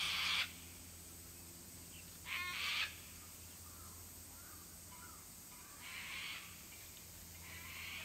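Kookaburra giving short, harsh calls: a loud one at the start and another about two and a half seconds in with a rapid stuttering rattle, then two fainter calls later on.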